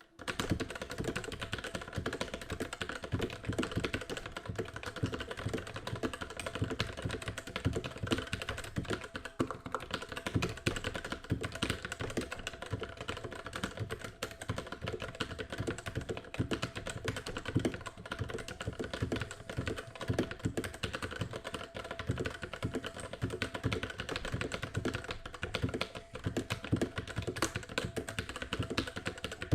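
Steady, fast typing on a stock RK61 60% mechanical keyboard with Outemu red linear switches: a dense stream of muted, dampened key clacks.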